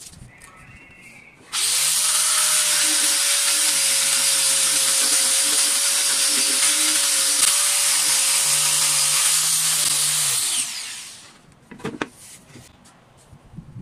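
Handheld electric sander with a 120-grit sanding disc switched on about a second and a half in, running steadily at full speed while sanding a wooden plank, then switched off and winding down. A few brief brushing knocks follow as the dust is wiped off.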